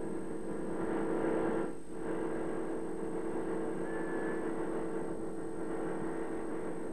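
A steady, unchanging drone with a hum under it, dipping briefly about two seconds in.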